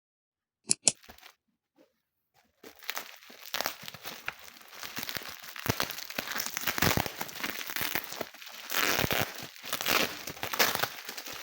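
Two sharp clicks, then about two and a half seconds in an irregular crinkling and rustling begins and goes on, like something crackly being handled or crumpled.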